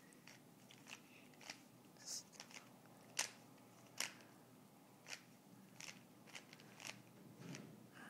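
Faint, irregular plastic clicks of a Rubik's Cube's layers being twisted, a scattered run of short snaps with a couple of louder ones midway.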